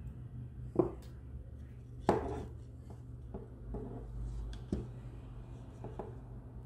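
Handling noise from assembling a 3D-printed plastic crossbow pistol: about six light knocks and clicks at uneven intervals as the plastic parts and tools are moved and set down, the sharpest about one and two seconds in, over a steady low hum.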